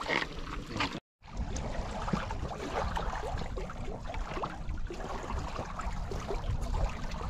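River water running at a stony bank: an even rush with scattered small clicks. The sound cuts out completely for a moment about a second in.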